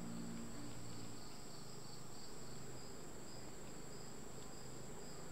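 Insect chorus of crickets chirping: a steady high trill with a regular pulsing chirp just below it.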